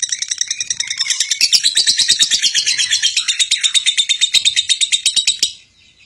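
Lovebird singing a long, unbroken chatter of rapid sharp notes, about seven a second, in the continuous style called konslet. The chatter cuts off abruptly near the end.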